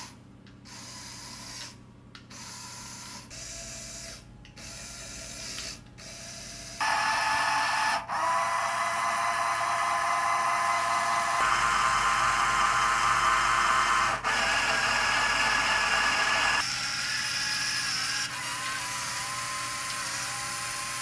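Lego Technic electric motor and plastic gear train running: a mechanical whirring with a steady whine, heard in short separate clips at first, then louder and continuous from about seven seconds in as the differential gearbox turns.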